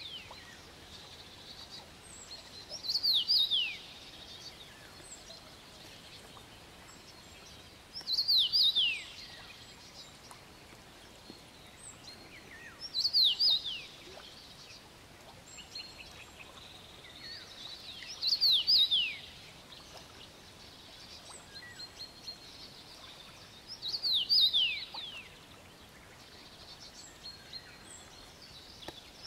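A songbird repeating one short song phrase five times, about every five seconds; each phrase is a quick run of falling notes lasting about a second. Between the phrases there is a faint steady outdoor background.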